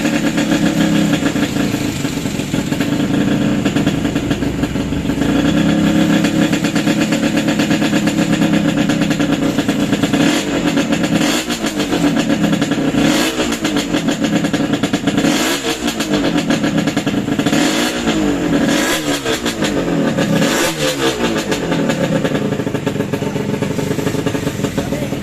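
Yamaha RX-King's 135 cc two-stroke single-cylinder engine, just rebuilt, running at a steady idle. Then, from about the middle, it is revved in about six throttle blips, each rising and falling in pitch.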